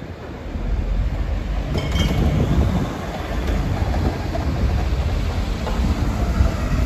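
Steady rumble of a moving vehicle that builds about half a second in, with a brief high squeal about two seconds in.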